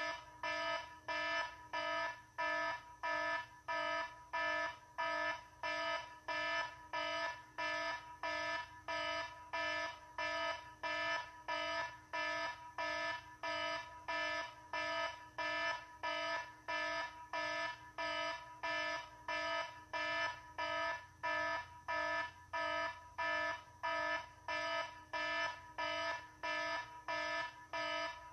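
An alarm beeping over and over in an even rhythm, about one and a half beeps a second, each beep a short pitched tone that starts loud and fades.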